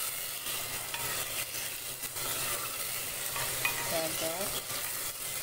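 Boneless chicken cubes and onion sizzling in hot oil in a clay handi, stirred with a wooden spoon that scrapes and clicks against the pot.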